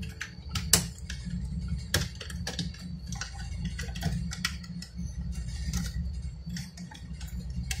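Irregular plastic clicks and taps from hands working parts inside an opened inkjet printer, over a low steady hum.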